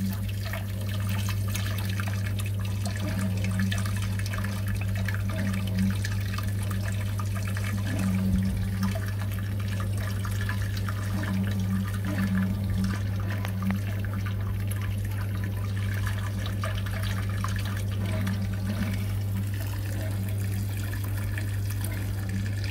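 Water pouring steadily into a water-filled stainless brewing kettle, splashing and trickling, over a steady low hum.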